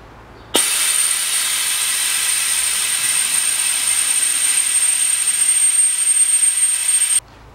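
Suction through the vacuum hose of an express oil-change extractor, drawing diesel from the tank into a newly fitted diesel fuel filter to fill it and purge the air. It is a steady hiss with a high whistle that starts suddenly about half a second in and cuts off suddenly near the end.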